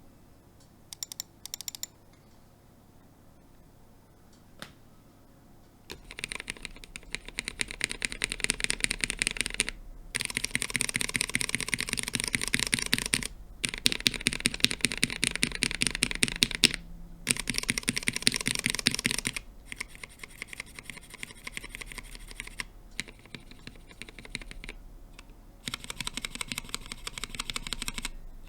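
Rapid typing on a mechanical keyboard fitted with Cherry MX Black Hyperglide linear switches and POM keycaps. The keystrokes come in several runs separated by short pauses, some runs louder than others. The first few seconds are quiet apart from a few clicks.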